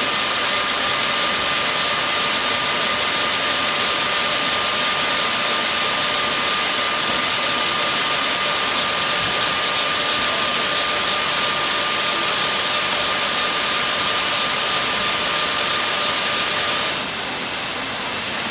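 Circular sock-knitting machine running: a steady hiss with a constant high whine. The whine stops near the end, leaving a slightly quieter hiss.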